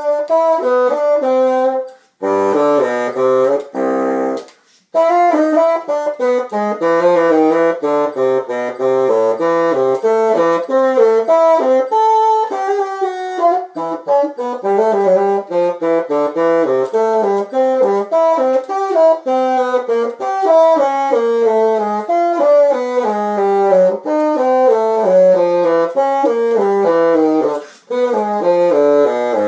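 Bassoon playing quick runs of notes that step up and down, with short pauses about two and five seconds in and again near the end.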